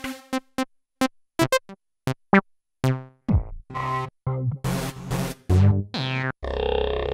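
Roland XPS-30 synthesizer keyboard playing short, separate notes and sounds. A falling pitch sweep comes about three seconds in, and denser noisy sounds follow in the second half.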